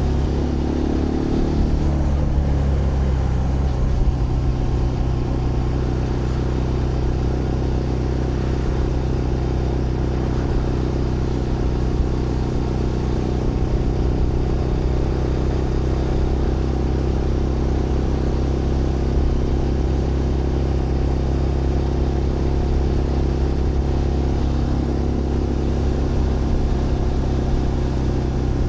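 Zontes GK 125's single-cylinder 125cc engine running on the move at fairly steady revs. The pitch drops briefly in the first couple of seconds, then holds steady.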